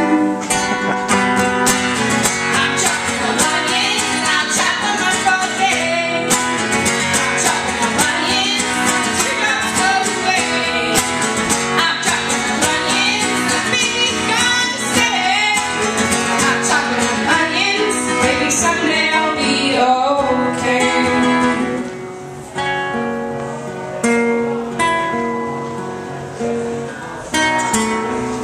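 Acoustic guitar strummed with women's voices singing. About 22 seconds in, the singing stops and the guitar carries on alone, quieter.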